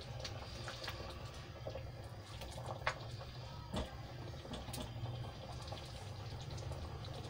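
Thick curry gravy of chickpeas and lentils bubbling at a simmer in a metal pan while a plastic spatula stirs it, with small wet pops and a couple of sharper clicks near the middle.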